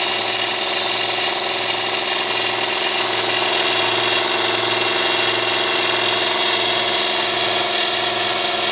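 Mini abrasive belt sander's 12–24 V DC motor and belt running at a steady speed, a constant whine with many overtones over a steady hiss.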